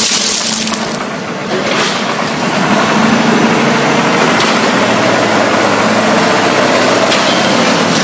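Concrete mixer pump running steadily: a loud, even machine noise with a low hum, dipping slightly about a second in.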